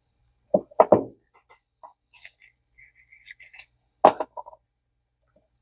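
Small reel parts being handled at a workbench: a few sharp knocks and scattered light clicks, with a brief crinkling rustle in the middle.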